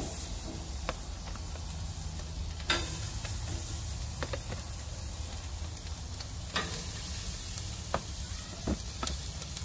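Marinated chicken sizzling on the hot grates of a gas grill, a steady hiss. Metal tongs click now and then as pieces are laid on the grill.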